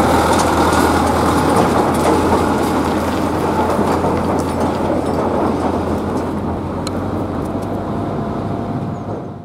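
Tractor engine running steadily as it tows a loaded pipe trailer over the level crossing, with a few sharp clicks. The sound eases off gradually as the tractor moves away.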